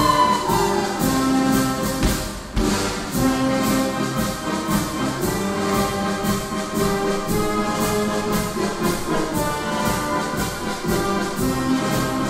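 Brass band playing music for a folk dance, with sustained horn tones over an even, steady beat and a brief lull about two seconds in.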